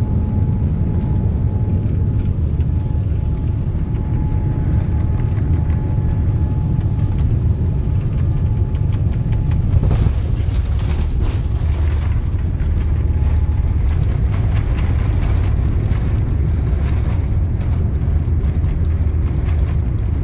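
Cabin noise of a Boeing 787-9 airliner landing and rolling out on the runway: a steady low rumble throughout, with a faint steady tone that stops about halfway. After that, a louder hiss and a run of light rattles.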